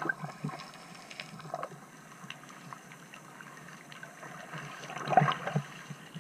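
Muffled underwater ambience heard from a submerged camera, with scattered small clicks and crackles, and a burst of bubbling about five seconds in as a free-diving spearfisher rises toward the camera trailing air bubbles.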